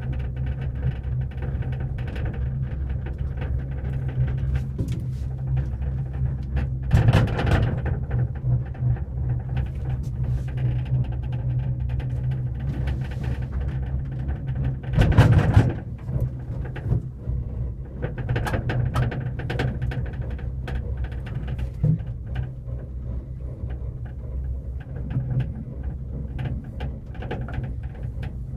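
Gondola cable car cabin riding down its haul cable: a steady low rumble from inside the cabin, with two louder surges of about a second each, about seven and about fifteen seconds in.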